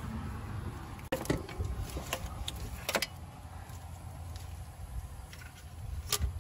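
Intake manifold of a Kia Sportage engine being worked loose and lifted out by hand: scattered clicks and clunks of metal, hoses and plastic connectors, several between about one and three seconds in and another near the end, over a steady low rumble.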